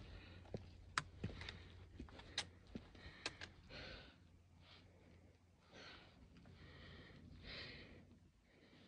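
A hiker breathing hard with exertion while climbing over rocks, the breaths coming about once a second in the second half. In the first few seconds, sharp clicks of steps on rock.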